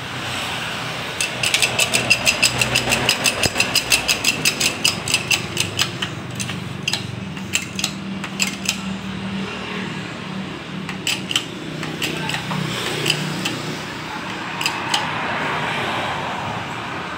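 Rapid metallic clicking, about six or seven clicks a second, starts about a second in and runs for roughly five seconds. Scattered single clicks follow over a low steady hum.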